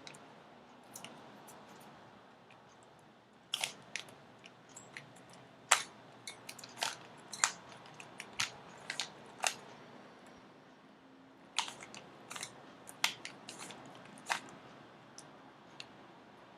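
Rubik's cube being twisted by hand: irregular sharp clicks as the layers turn, some singly and some in quick little runs, with pauses between.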